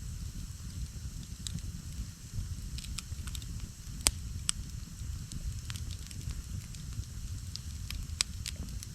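Wood campfire crackling, with scattered sharp pops over a low steady rumble; the loudest pop comes about four seconds in.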